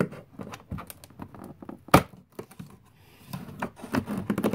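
Fingers tapping and scraping on a cardboard wine advent calendar and prying a perforated door open, with one sharp click about two seconds in and a quick run of crackling taps near the end as the door tears free.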